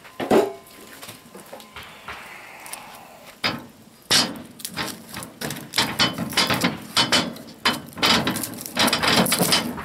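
A stick of split firewood knocking and scraping against the cast-iron firebox opening of an antique wood cook stove as it is forced in. The stick is too long for the firebox. One knock comes at the start, then from about a third of the way in a quick run of repeated knocks, two or three a second.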